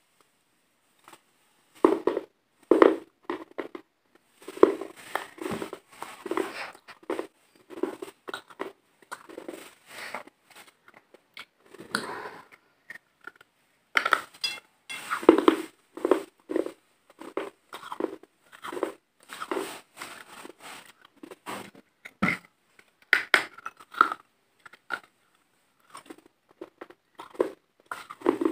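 Close-miked biting, crunching and chewing of white pieces of wet chalk-like material that were soaked in water. The crisp crunches come in irregular clusters of bites, with short pauses between mouthfuls.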